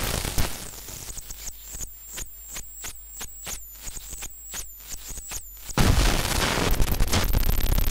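Modular synthesizer noise: the dense harsh noise drops away, leaving a sparse train of sharp electronic clicks, several a second, with high chirping tones over a steady low hum, until loud crackling noise cuts back in abruptly about six seconds in.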